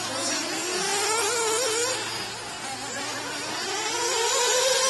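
High-revving buzz of small nitro engines in 1/8-scale off-road RC buggies. The pitch rises and falls with the throttle, then climbs and grows louder toward the end.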